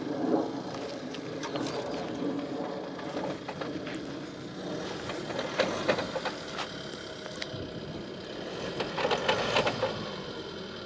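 Tata Safari Storme's diesel engine working under load as the SUV crawls through deep ruts of loose sandy soil, with louder, crackly spells about halfway and again near the end.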